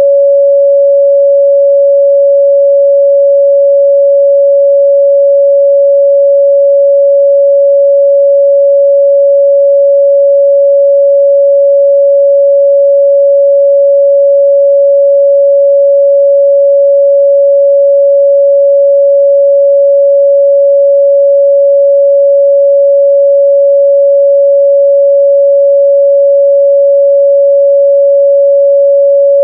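A steady 561 Hz sine-wave test tone, one pure unchanging pitch held at a constant loud level.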